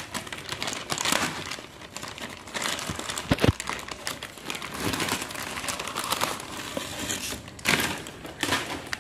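Thin plastic wrapping crinkling and rustling as hands pull it off potted plants, with a dull knock about a third of the way in.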